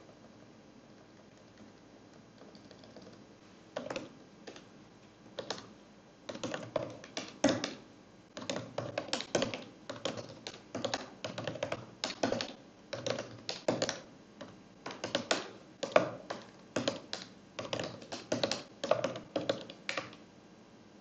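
Typing on a computer keyboard: rapid keystrokes in irregular bursts, starting about four seconds in after a few quiet seconds.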